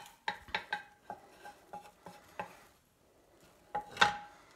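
Spatula clicking and scraping against a frying pan while an omelette is rolled up in it: a quick run of sharp clicks with a short ring, lighter taps, a pause of about a second, then two louder knocks near the end.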